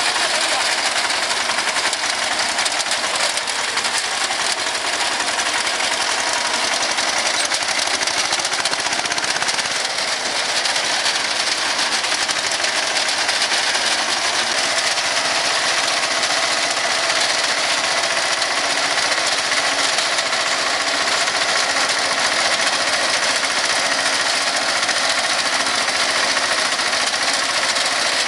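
Tractor-mounted reaper cutting standing grain: the reciprocating cutter bar's rapid, steady clatter over the Captain tractor's running engine.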